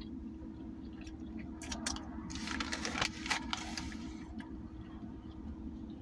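Steady low engine and road rumble inside a car, with a cluster of small clicks and rustles between about one and a half and three and a half seconds in.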